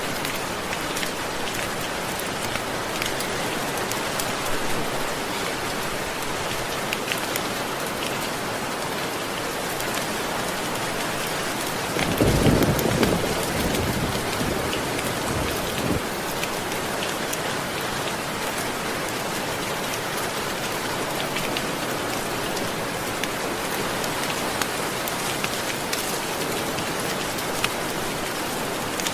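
Steady rain falling, with a low rumble of thunder about twelve seconds in that swells and fades over a few seconds.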